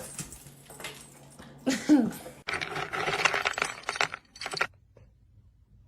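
Dry dog kibble poured into a bowl, a dense clattering rattle lasting about two seconds that stops abruptly, preceded by a brief voice sound.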